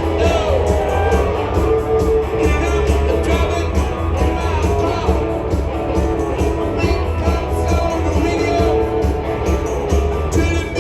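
Rock song with singing over a band: a steady bass and beat under a lead vocal.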